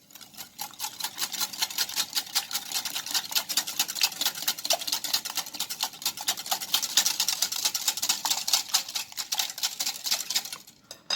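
A lemon being grated on a metal grater for its zest: quick, even scraping strokes, about seven a second, kept up steadily for around ten seconds.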